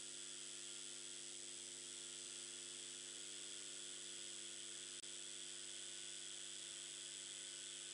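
Faint steady hiss with a low electrical hum and buzz under it: the background noise of a narration microphone. A tiny click about five seconds in.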